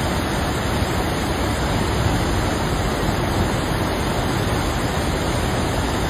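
River water rushing over shallow rapids and around rocks: a steady, even rushing noise.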